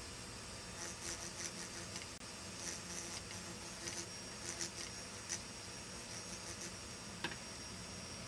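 Faint high-pitched whine of a small engraving drill, its burr grinding on an optical crystal block, with short bursts of grinding that come and go as the burr touches the glass. A sharp click about seven seconds in.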